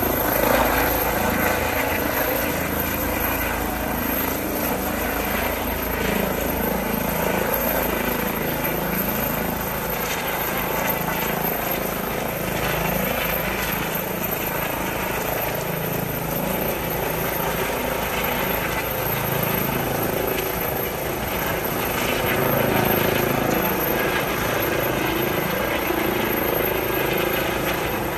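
Eurocopter EC135 air-ambulance helicopter lifting off and climbing away, its rotor and twin turbine engines running loud and steady.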